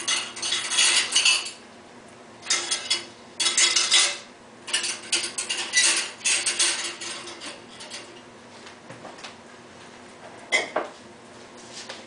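Drinking glasses clinking against one another and against the wire glass rack of a 1949 GE RA-949 portable dishwasher as they are set in place. The clinks come in several short bursts of clatter, then a pause of a few seconds, then one last clink near the end.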